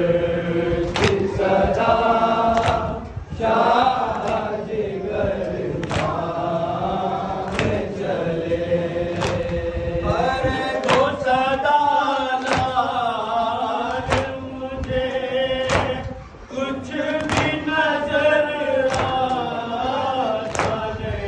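Group of men chanting a Muharram nauha (mourning lament) in unison behind a lead reciter on a microphone, with sharp strikes at a steady beat roughly every second: hands beating chests (matam) in time with the lament.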